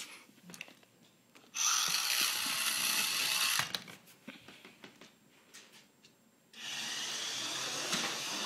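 Small DC gear motors of an Arduino motor-shield robot car running in two bursts of about two seconds each as the car drives, with light clicks and knocks in between.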